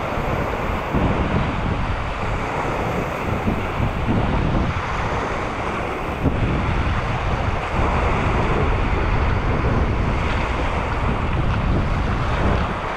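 Wind buffeting the microphone in uneven gusts over the steady wash of sea waves.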